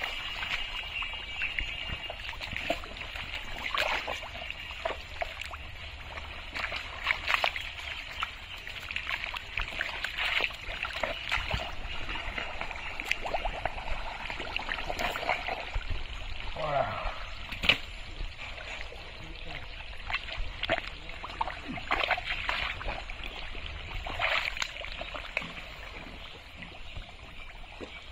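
Wet mud and shallow muddy water squelching and sloshing as a person wades and digs through it by hand, with scattered small splashes.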